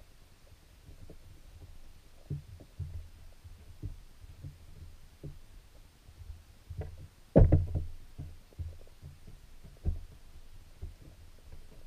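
Muffled underwater sound of creek water picked up by a submerged camera: a low rumble with irregular soft thumps, and one louder knock about seven and a half seconds in.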